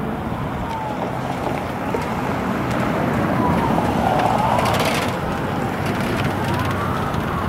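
Amtrak GE Genesis diesel-electric locomotive running under load as the train pulls away, with a steady low rumble. Over it a high wailing tone slowly rises and falls two or three times, and a brief hiss comes about five seconds in.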